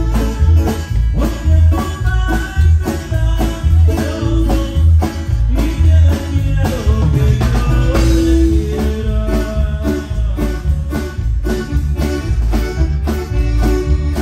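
Loud music with a steady beat and a heavy bass line under melodic instruments.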